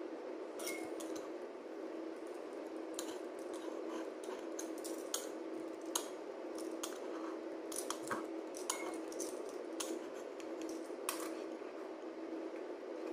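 A metal pizza-cutter wheel cuts through a slice of flattened white bread on a wooden board, guided around the rim of an upturned glass bowl. It makes many short, sharp clicks and scrapes of metal against glass and wood, which stop shortly before the end. A steady hum runs underneath.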